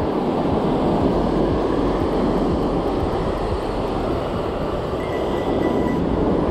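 Steady rustling rumble of a fleece hoodie sleeve rubbing against the camera microphone, over the wash of surf.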